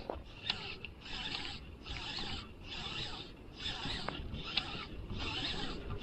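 Baitcasting reel being cranked to retrieve line: a soft mechanical whirr that swells and fades in regular pulses a little more than once a second, with a sharp click at the start.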